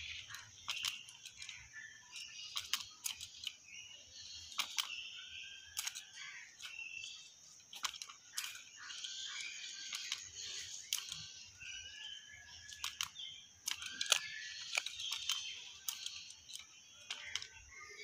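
Hill myna making soft short whistles and many irregular sharp clicks, over a steady high hiss.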